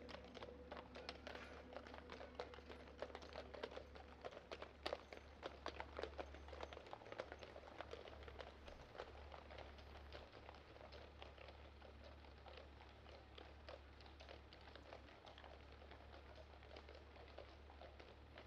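Shod hooves of two heavy draught horses clip-clopping on a tarmac road as they pull a carriage, faint and irregular, fading in the second half as they move away.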